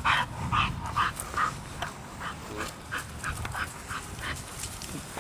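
Pit bull-type dog panting in quick rhythmic puffs, about two or three a second, loudest in the first second or so.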